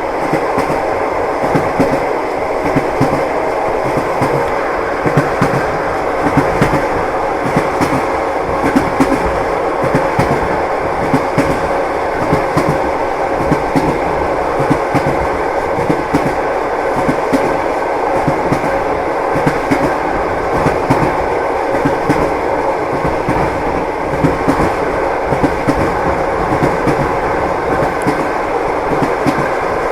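Train in motion: the wheels knocking on the rails over a steady running noise.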